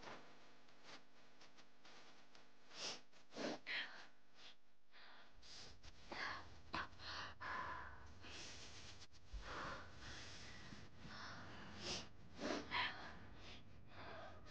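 Quiet sniffling and unsteady breathing of women weeping softly, in short scattered bursts.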